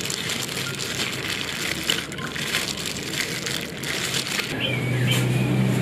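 Pandan-leaf juice pouring and dribbling from a plastic strainer cup into a stainless steel pot, a crackly, splashy trickle. A low steady hum comes in about four and a half seconds in.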